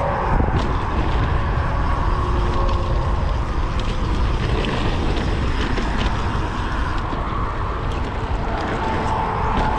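Mountain bike in motion on a dirt trail: steady wind noise on the GoPro microphone over tyre noise, with scattered light clicks and rattles from the bike.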